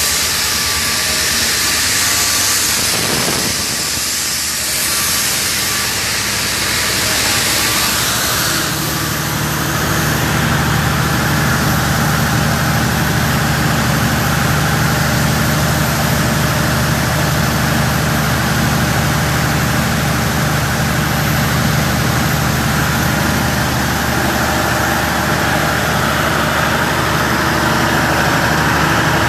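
Oxygen-plant machinery: a loud hiss of escaping gas for about the first eight seconds, then the hiss gives way to a steady low machine hum that runs on evenly.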